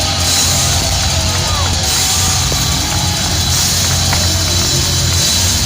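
Heavy metal band playing live and loud, with distorted electric guitars, a strong sustained bass and drums.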